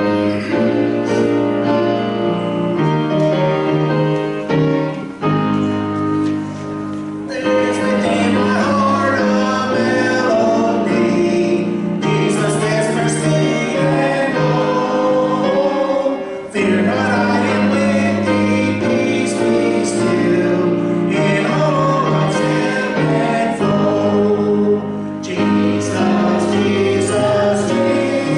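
A man singing a gospel song over a full instrumental accompaniment.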